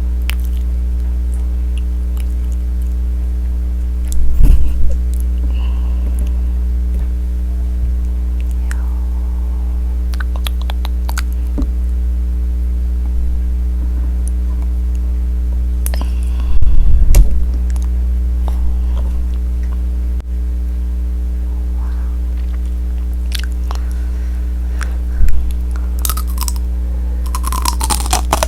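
Biting and chewing tanghulu: the hard candied-sugar shell cracks and crunches in a few loud bites with crackly chewing between them. A steady low electrical hum runs underneath.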